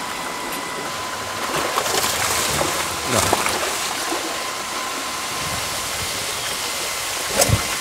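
River water rushing steadily through the mesh cage of a fish trap, with a sharp knock near the end.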